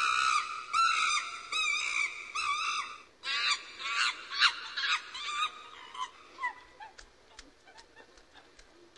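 Chimpanzees calling in high, wavering cries: a dense run in the first three seconds, a second burst just after, then thinning out and fading by about seven seconds in.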